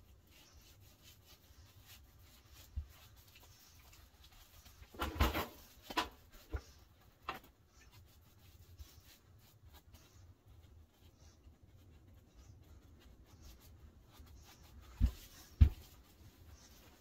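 Paintbrush strokes on wooden window trim, soft and quiet, broken by scattered knocks and taps: a cluster about five to seven seconds in and two sharp knocks near the end.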